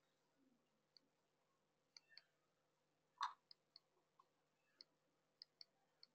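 Near silence with faint, scattered short clicks, about a dozen irregularly spaced, and one slightly louder tap about three seconds in.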